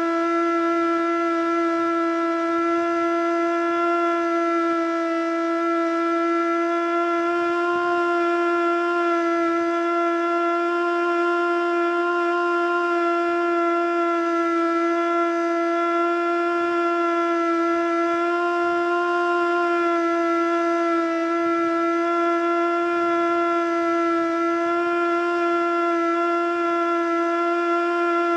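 Federal Signal Model 2 outdoor warning siren sounding its steady Alert tone, held at one low pitch that wavers slightly and never reaches full pitch. The siren is running sick, which the owner puts down to probably worn motor brushes.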